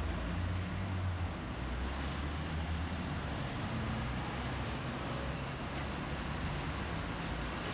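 Outdoor street ambience picked up by a camcorder: a steady noise of distant traffic with wind rumbling on the microphone.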